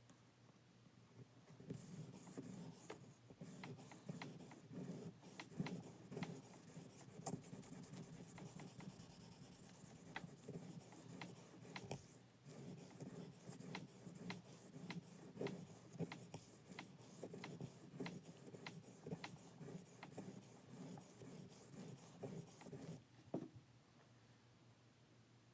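A 440C steel push-dagger blade being stroked back and forth on a wet 8000-grit whetstone: a continuous scraping with light clicks that stops near the end.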